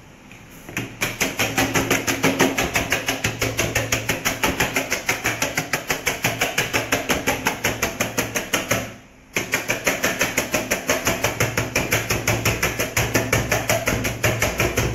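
Eggs being whisked by hand in a mixing bowl, the utensil clattering against the bowl in quick even strokes, about five a second, with a brief pause about nine seconds in.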